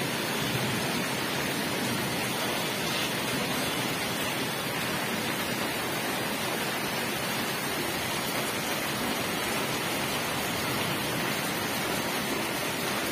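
Heavy rain pouring down, a steady even hiss.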